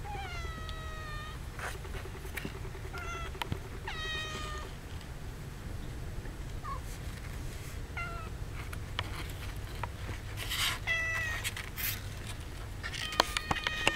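Young kittens, about two and a half weeks old, mewing: a series of thin, high calls, each falling in pitch and lasting up to about a second, coming more thickly near the end. Light clicks and scratches sound between the calls.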